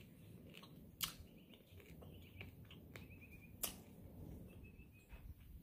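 Near silence with a faint low background, two sharp clicks, one about a second in and one past the middle, and a bird chirping faintly in a quick run of notes about three seconds in and again near the end.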